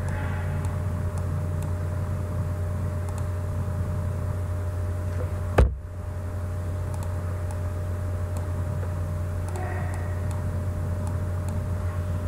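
Steady low background hum with a few faint constant tones, and one sharp click about halfway through.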